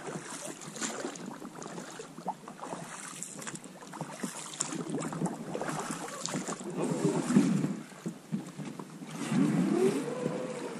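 Water sloshing and splashing with light crackles of twigs as a man wades through shallow water among a beaver dam's fallen branches to an inflatable PVC boat. Squeaky rubbing from the boat's tube comes twice, about two-thirds through and again near the end as he grips it.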